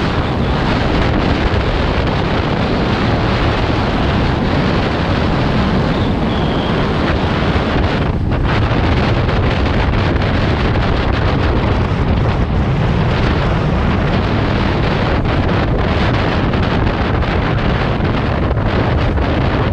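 Heavy wind buffeting the microphone of a camera on a moving vehicle: a steady, dense rumble that is strongest in the low end and does not let up.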